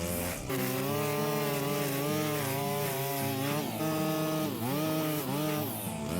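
String trimmer running at high speed, its pitch dropping and climbing back several times in the second half as the throttle is eased off and squeezed again.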